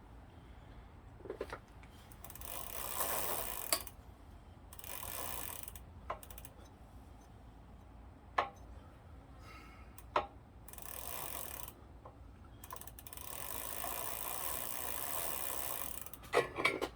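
A ratchet clicking in several bursts, each a second or more long, with a few sharp metal clicks between them, as a pedal is tightened into a crank arm whose threads were galled.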